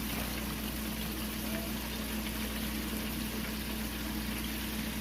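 Floured chicken strips deep-frying in oil at 350 degrees: a steady sizzle, with a constant low hum underneath.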